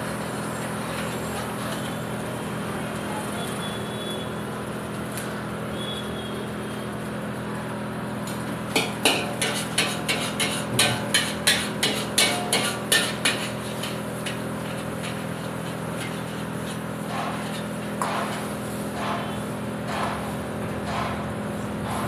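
Metal ladle striking the inside of a large wok while stir-frying fried rice: a run of about a dozen sharp clangs, about three a second, in the middle, and a few scattered strikes near the end, over a steady hum.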